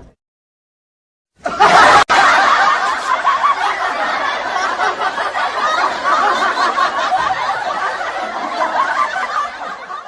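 Laughter starts abruptly after about a second and a half of dead silence and runs on continuously to the end.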